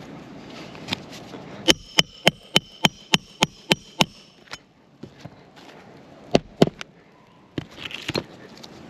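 Hammer driving roofing nails into a replacement asphalt shingle during a repair: a quick run of nine ringing strikes, about three a second, then two more blows a couple of seconds later.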